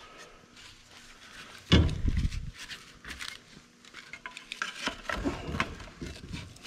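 Stock exhaust manifold being handled and fitted against an LS engine block: scattered metal clinks and knocks, with one heavy thump about two seconds in.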